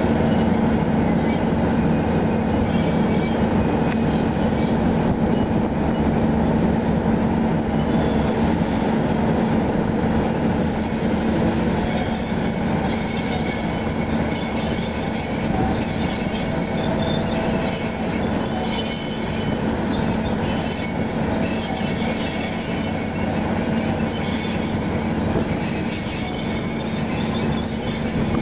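Kirow KRC1200 railway crane and its wagon rolling slowly along the track: a steady low engine drone and rumble, with the steel wheels squealing on the rails. The squeal is patchy at first and becomes a held high squeal from about ten seconds in until near the end.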